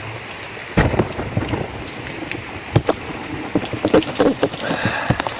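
Steady rain falling during a tropical storm, with scattered sharp taps of drops; the loudest taps come about a second in and just before three seconds in.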